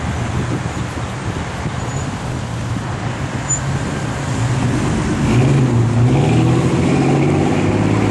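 An engine running with a steady low hum over wind-like rushing, getting louder from about five seconds in.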